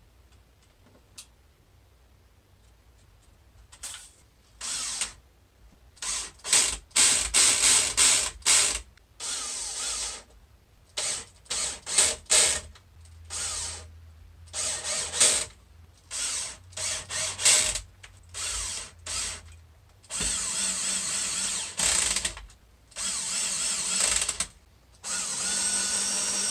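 Cordless drill running in many short bursts, drilling pilot holes and driving drywall screws into the wooden panel frame's cross braces. The bursts start about four seconds in, and the runs grow longer near the end.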